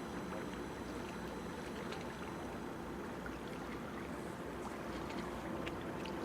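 Steady harbour-side ambience: an even low rumble and hiss of distant traffic and water, with a few faint ticks.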